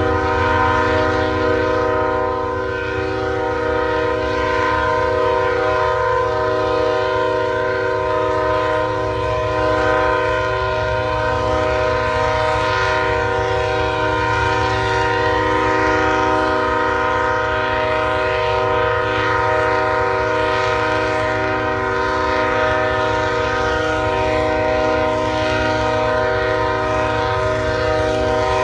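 Train horn blowing one unbroken blast, a steady chord of several tones held without a pause, with a low rumble underneath.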